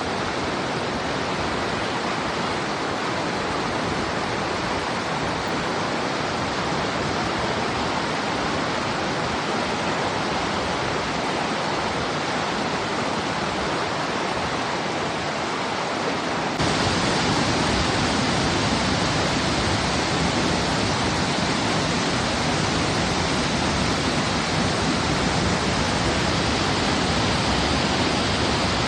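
Steady rush of a mountain river's fast-flowing water below a waterfall. A little past halfway it switches abruptly to a louder, fuller rush with more low rumble.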